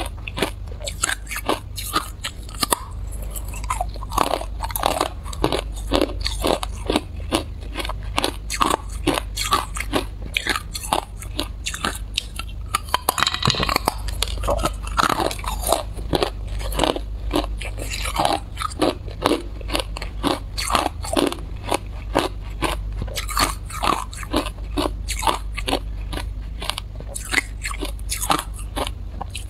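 Hard, clear ice being bitten and crunched between the teeth, as a steady run of sharp cracks several times a second, over a low steady hum.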